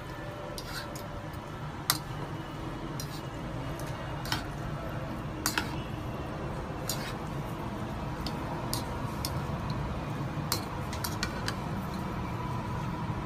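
Metal fork and spoon clinking and scraping against a bowl as instant noodles are tossed, in scattered irregular clicks. The sharpest click comes about two seconds in.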